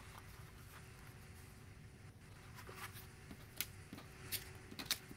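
Cardstock being handled: a few faint, sharp taps and paper clicks, mostly in the second half, over a faint steady hum.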